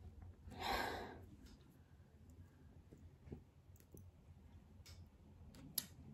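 A short soft whoosh about a second in, then a few faint scattered clicks.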